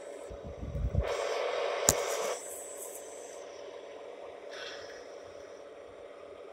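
O gauge model train rolling slowly on its track with a steady hum. A few low thumps come just under a second in, then a loud hiss for about a second and a half with one sharp click in it, and a fainter hiss later on.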